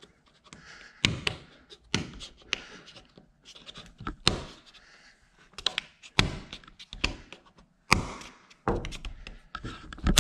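A CAL Double Bolt Lock on a sliding patio door being worked by hand: a string of separate clicks and thunks as its bolts are thrown and drawn back several times.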